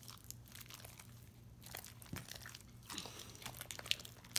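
Sticky glue-and-laundry-detergent slime being kneaded and squeezed by hand, making faint crackling, clicking squelches as it pulls apart between the fingers, with a couple of sharper clicks near the end.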